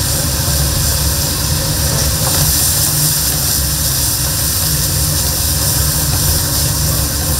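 Steady low rumble of commercial kitchen burners and exhaust ventilation, with a continuous high sizzling hiss from food stir-frying in a large pan.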